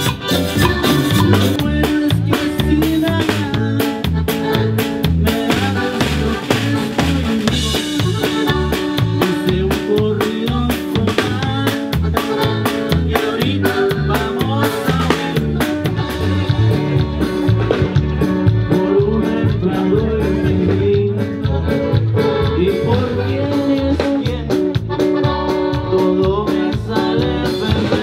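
Live Latin band music through a PA: a steady drum-kit beat and bass under accordion and keyboard, with a voice singing at times.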